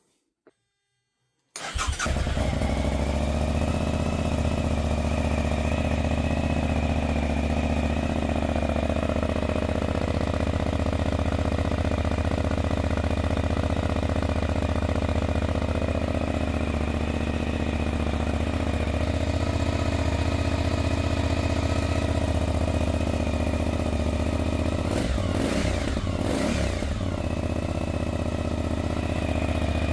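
A Suzuki V-Strom 1050DE's V-twin engine, breathing through a Fuel slip-on exhaust with its decibel killer fitted, starts about a second and a half in and then idles steadily and loudly in a garage, at about 100 decibels.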